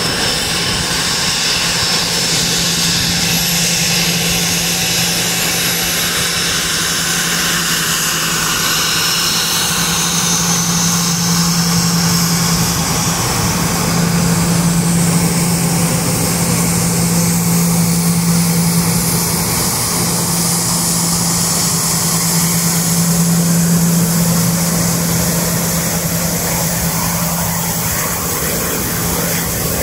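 Gulfstream G550's Rolls-Royce BR710 turbofan engines running at taxi power as the jet taxis past: a steady jet rush over a steady low hum, with a high whine that fades after about ten seconds as the engines turn away.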